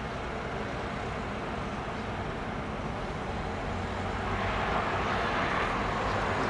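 Jet engine noise of an Airbus A310 on approach to land, heard from the ground: a steady noise that swells louder about four and a half seconds in as the airliner comes closer.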